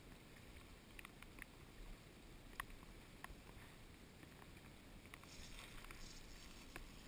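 Near silence: a kayak gliding on a river, with faint water hiss and a few light scattered ticks, and a soft swish about five seconds in.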